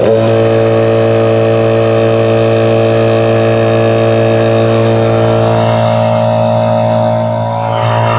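VEVOR 8-gallon oil-free air compressor switching on abruptly and running steadily with a loud motor hum and whine, pumping up pressure in its tank. It dips slightly in loudness near the end.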